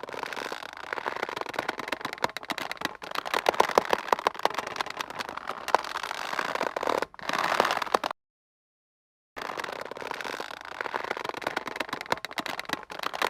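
A taut rope creaking and squeaking under strain: a dense run of fine crackling creaks that swells and eases. It breaks off for about a second of silence a little past the middle, then starts again.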